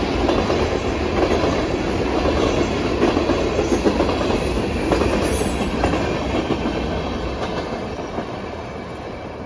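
Empty tank cars rolling past on steel wheels, clicking over the rail joints. The sound fades steadily over the last few seconds as the end of the train pulls away.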